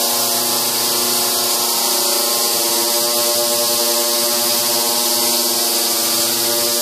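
Ultrasonic cleaning tank running while it cleans an aluminium engine block: a steady buzzing hum with many overtones over a constant high hiss from the cleaning bath.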